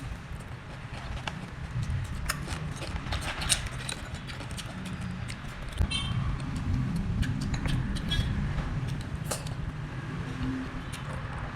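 Steady low rumble of background noise with many scattered sharp clicks and taps, and a short pitched tone about six seconds in.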